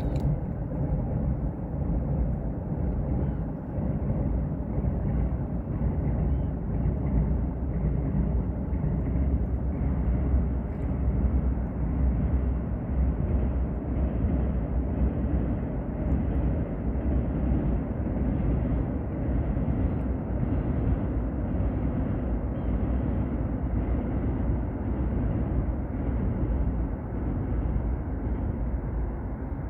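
Steady low rumble of distant city traffic carried across the river, an even outdoor hum with no single event standing out.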